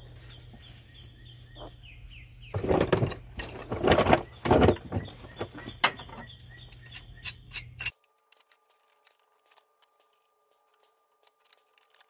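Pipe wrench and locking pliers clanking and scraping on a corroded bell crank seized tight on a mower's steel steering shaft, loudest about a quarter to halfway in, with lighter metal clinks after. About two-thirds of the way in the sound cuts out abruptly to near silence. Birds chirp faintly in the background at the start.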